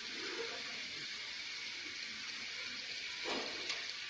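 Jackfruit chips frying in hot coconut oil in a steel kadai: a steady sizzling hiss. The chips have changed colour and are nearly done. A brief scrape comes about three seconds in.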